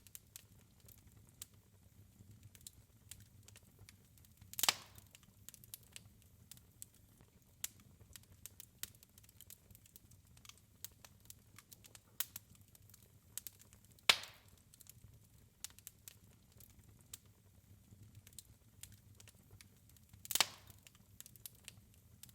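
Wood fire crackling in a fireplace: scattered small crackles and three sharp pops spread across the stretch, over a faint low rumble.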